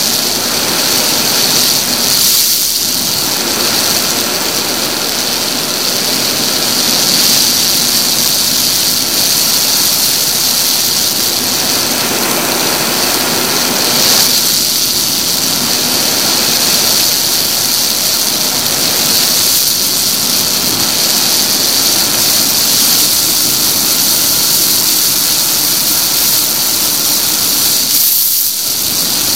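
Wind rushing over a helmet-mounted action camera's microphone on a moving motorcycle: a loud, steady hiss with a high whistle, and the motorcycle's engine running underneath.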